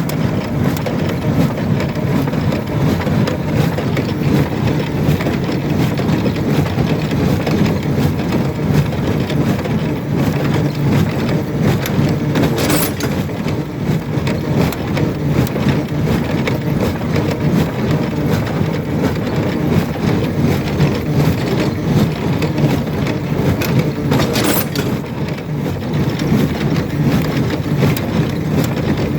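Shaktiman square baler running with its knotter working: a steady, fast mechanical clatter, broken by two sharper clacks about twelve seconds apart, one near the middle and one near the end.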